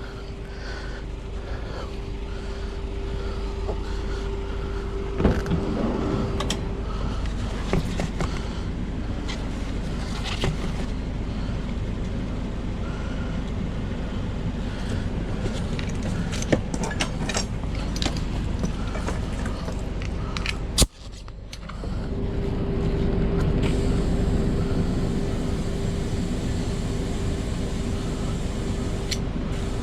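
Small air compressor running with a steady hum while inflating an underinflated spare tire, with scattered clicks and knocks of handling. The hum cuts out briefly about two-thirds of the way through and then picks up again.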